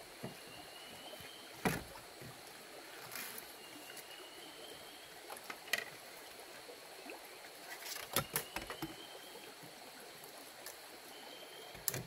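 Stream water running steadily. A few sharp knocks and clicks come through it, with a cluster about two thirds of the way in, and a faint short rising whistle sounds now and then.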